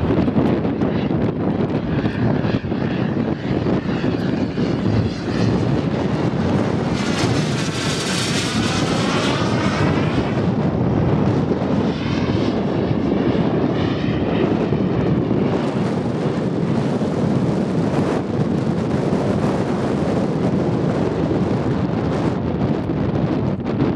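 Skymaster A-10 radio-controlled model jet flying overhead, its engine noise steady, with a sweeping pass about eight seconds in and a shorter one a few seconds later.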